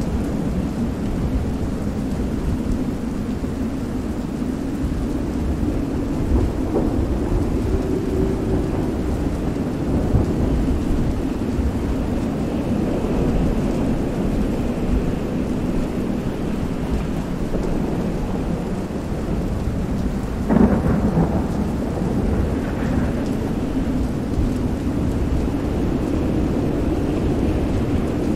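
Layered storm ambience: steady rain and wind under a continuous low rumble of thunder, with a sharper thunderclap about twenty seconds in. Faint drawn-out tones come and go beneath the storm.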